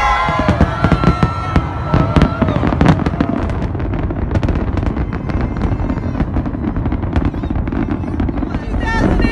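Aerial fireworks going off in a rapid, irregular series of sharp cracks and bangs, with a crowd's voices underneath.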